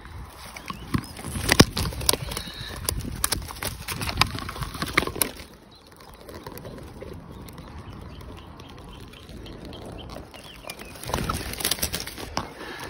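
Hawthorn twigs and the sticks of a magpie's nest rustling, scraping and cracking as they are pushed aside. Many sharp cracks come over the first five seconds, then it goes quieter, and more rustling and cracks follow near the end.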